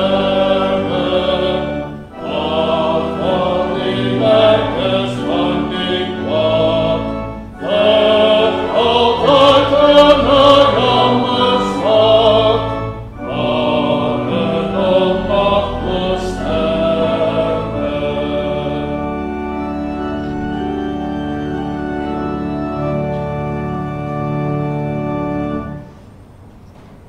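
A congregation singing a hymn with organ accompaniment, in phrases with short breaks between them. About nineteen seconds in the voices stop and the organ carries on alone in held chords, cutting off about a second before the end.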